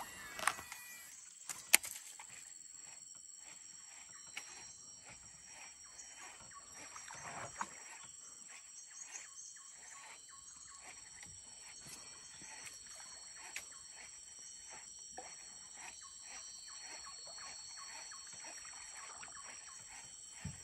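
Steady high-pitched drone of insects from the jungle bank, with faint clicks and knocks scattered through it and two sharper knocks in the first two seconds.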